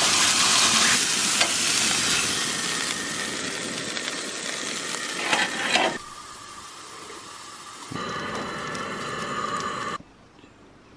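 Thin steaks sizzling in a stainless steel frying pan, loud and steady, with a few sharp clicks shortly before the sizzle cuts off about six seconds in. A quieter hiss follows.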